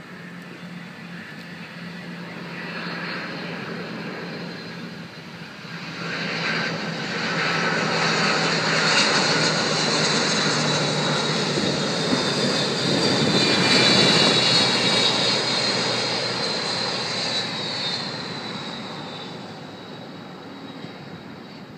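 McDonnell Douglas DC-10 trijet's jet engines passing low on final approach with a high whine on top. The sound swells to its loudest about two thirds of the way through, then fades as the aircraft lands and rolls away down the runway.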